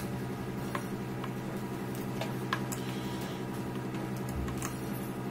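A few scattered light clicks and taps as a small electric motor and its wiring are handled and pulled from a plastic tool housing, over a steady low hum.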